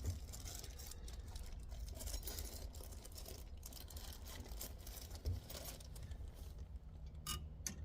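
Faint rustling and scattered small clicks of hands handling and fitting small parts while trying to screw a piece into the steering column, over a low steady background rumble.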